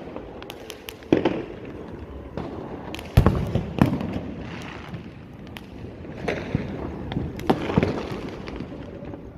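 Fireworks going off: loud bangs about a second in, twice around three to four seconds, and several more between six and eight seconds, over many smaller pops and crackles.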